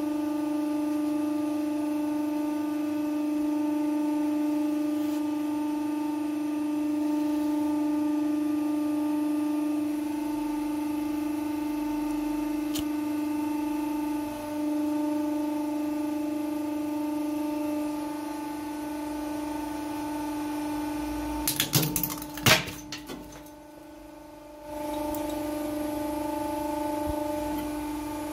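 Hydraulic press's pump motor humming steadily as the ram moves. About three-quarters of the way through come a few sharp cracks and knocks, after which the hum drops out for a second or so before starting again.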